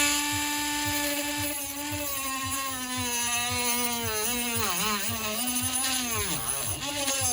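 Small high-speed rotary tool whining as it cuts into a plastic charger casing. The pitch holds steady at first, then sags and wavers repeatedly about halfway through as the tool bogs down in the plastic.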